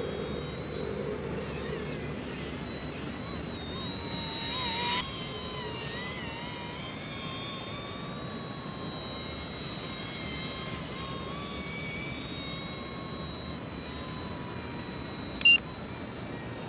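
ERA C159 remote-control helicopter in flight, its small electric motor and rotor giving a thin whine whose pitch wavers with the throttle. The whine grows louder about five seconds in and cuts back suddenly. A short, sharp beep sounds near the end.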